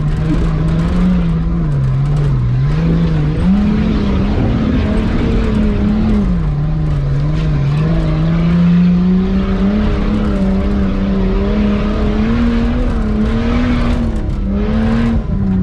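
Nissan Patrol Y60's swapped-in Skyline RB25 turbo straight-six running under light load, heard from inside the cab. Its pitch dips and rises several times as the throttle is eased on and off.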